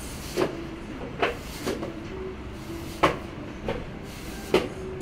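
Irregular sharp knocks and clicks of hard candy being worked by hand on a workbench, about six over five seconds, the loudest near the middle.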